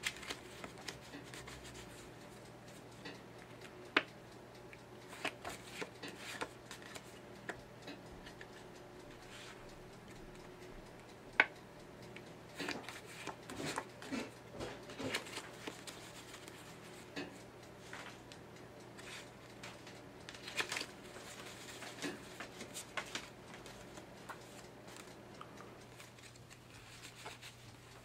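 Playing cards handled close up: scattered soft rustles and clicks as a small packet is pushed, spread and squared, with a couple of sharper snaps, about four and eleven seconds in, and busier clusters of card clicks later on. A faint steady low hum runs underneath.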